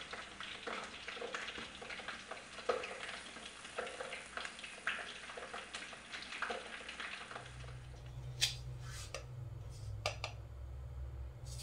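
Fish frying in hot oil, a dense sizzle full of small crackles and pops. About seven seconds in it cuts to a low steady hum with a few sharp clicks.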